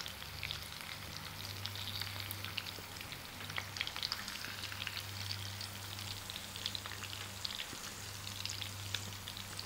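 Masala-coated seer fish steaks shallow-frying in ghee on a low flame, just turned over: a soft, steady sizzle with many small scattered crackles and pops.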